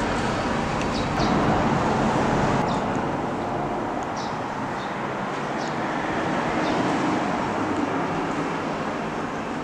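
Steady city traffic hum with no clear single vehicle, coming through from outside. A few short high chirps are scattered through it.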